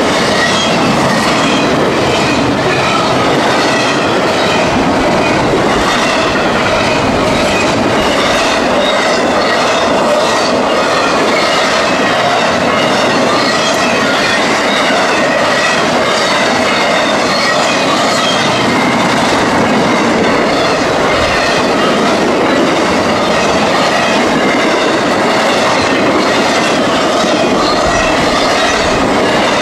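Freight train rolling past at close range: a loud, steady run of wheel clatter over the rails, with a thin, steady wheel squeal above it.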